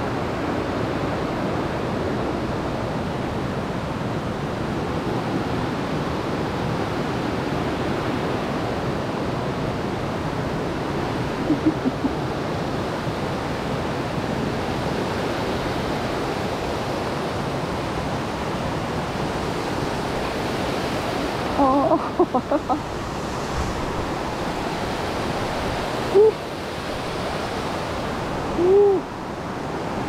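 Steady rushing of a rocky rainforest stream below a suspension footbridge. A few short pitched calls or squeaks break through it: a quick few just before the middle, a cluster about three-quarters of the way in, and two single ones near the end.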